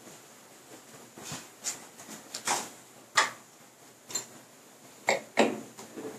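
Wine glasses and a tray being set down on a wooden table: a series of light knocks and clicks, with a brief glassy clink about four seconds in.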